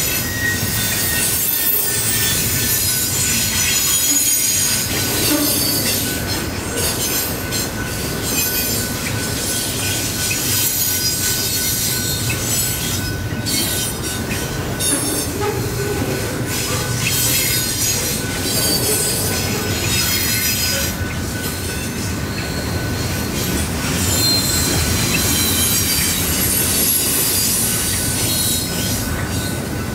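Double-stack container freight train rolling past, its steel wheels rumbling and squealing on the rails, with a thin steady high-pitched squeal over the noise of the cars.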